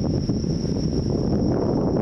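Typhoon wind buffeting the microphone, a dense, rough rumble, with a steady high-pitched whine above it.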